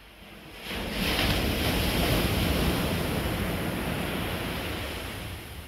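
Ocean wave breaking and its whitewash rushing up a sandy beach: the surf swells about a second in, stays loud for a few seconds, then fades.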